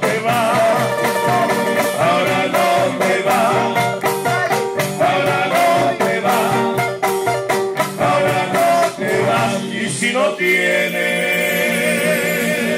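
Tondero music, a Peruvian coastal folk dance song, with singing over plucked strings and a steady percussive beat. About ten seconds in the beat drops out and the music changes to a steadier passage.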